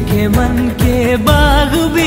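Background music: a Bollywood-style song with a singing voice over instrumental accompaniment.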